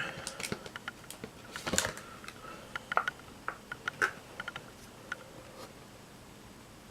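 Irregular light clicks and crackles of a plastic blister pack and a diecast toy car being handled, thinning out near the end.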